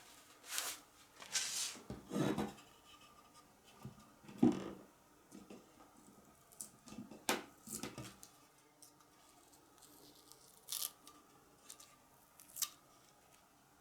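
Gloved fingers picking and scraping at painter's tape stuck down with dried carpenter's glue, making short, irregular rubbing and tearing sounds. They thin out about halfway through, with a couple of sharp clicks near the end.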